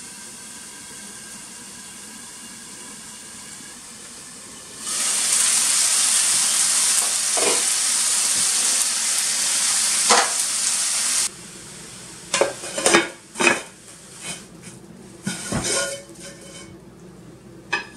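Gyoza frying in a frying pan: a steady sizzle under the glass lid, then a much louder, brighter sizzle for about six seconds with the pan uncovered as the dumplings crisp in the oil. It stops abruptly, and a run of sharp clinks and knocks follows as the pan and a plate are handled to turn the gyoza out.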